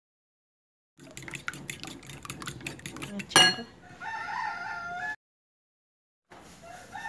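A fork beating eggs in a ceramic bowl, with rapid clicking of metal against the bowl, then a sharp clack. About four seconds in, a rooster crows, and a second crow starts near the end.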